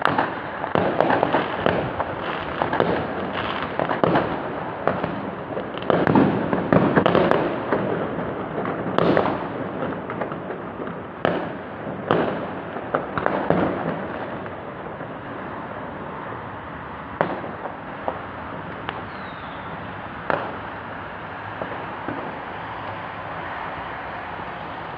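Fireworks bursting: a dense run of bangs and crackles over the first half, thinning to a few scattered bangs over a lingering rumble near the end.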